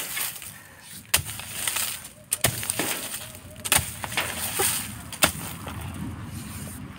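A hoe blade chopping into hard, dry soil and roots while a tuber clump is dug out: sharp separate strikes about every second or so, with crumbling soil between them.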